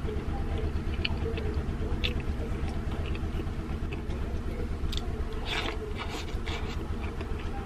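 Eating by hand: chewing, with soft scrapes and clicks of fingers gathering rice in a stainless steel bowl, over a steady low hum.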